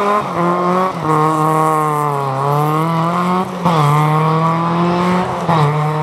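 Small hatchback rally car's engine pulling hard at high revs as it accelerates out of a hairpin, its pitch climbing through the gears with three quick upshifts, about a second in, midway and near the end.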